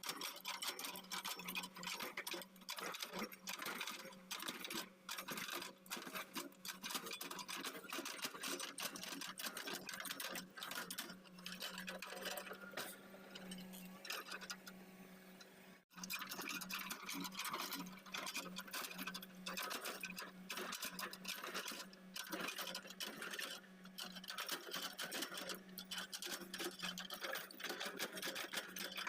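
L&T Komatsu excavator running: a steady engine hum under a rapid, continuous mechanical clatter, broken once by a brief dropout about halfway through.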